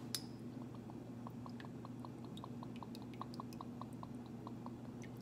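Soft, pitched liquid blips in a quick series, about five a second, stopping near the end, over a steady low hum.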